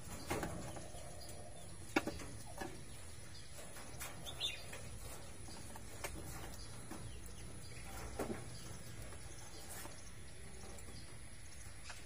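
Small animals making scattered short chirps and clicks, with a sharp click or knock about two seconds in, over a steady low hum.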